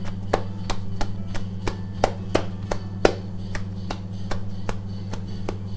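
Hands patting soft pearl millet (bajra) dough flat into a roti by hand in a steel bowl, a soft slap about three times a second. A steady low hum runs underneath.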